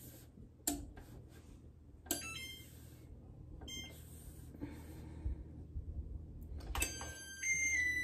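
Oven touch-control panel being keyed to a new temperature: a few clicks and short electronic beeps. About seven seconds in, a louder run of electronic tones starts, stepping up and down in pitch like a short melody.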